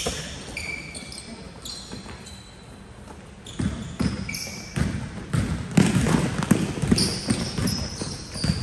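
Basketballs bouncing on a gym floor and sneakers squeaking in short high chirps as players move. The thumps thin out in the first few seconds and come thick and fast from about halfway through.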